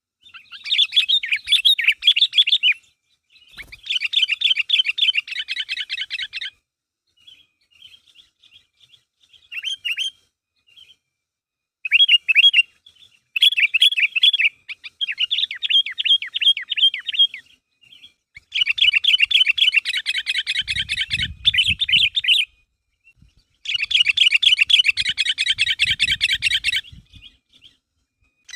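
Sooty-headed bulbul (kutilang) singing in repeated bursts of fast, chattering notes, each phrase lasting a few seconds with brief pauses between. This is the lively 'gacor' calling used to lure other bulbuls into song.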